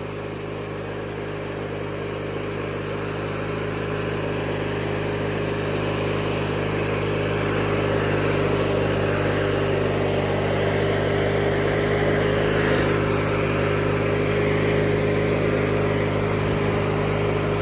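Engine of a 1997 MTD Yard Machines riding lawnmower running steadily at an even pitch, growing gradually louder over the first several seconds.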